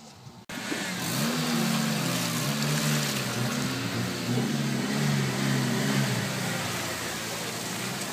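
Suzuki Jimny's engine running as it drives slowly along a muddy track and passes close by, its pitch rising and falling with the throttle, over a steady hiss. The sound starts suddenly about half a second in.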